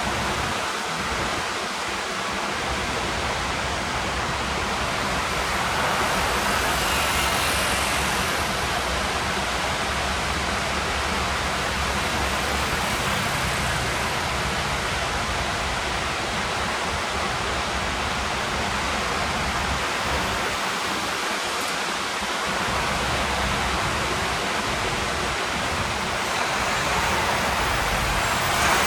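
Steady roar of heavy surf from a post-typhoon swell breaking along the shore, with an uneven low rumble that comes and goes.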